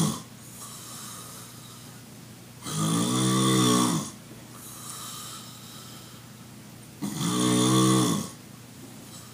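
A sleeper snoring loudly: long, rattling snores with a low buzzing pitch, one ending right at the start and two full ones about three and seven seconds in, each lasting over a second, with quieter breathing between.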